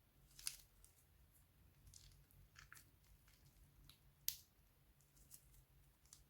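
Faint handling noises of slime and plastic piping bags: scattered soft clicks and squishes, with two sharper clicks about half a second in and just past four seconds.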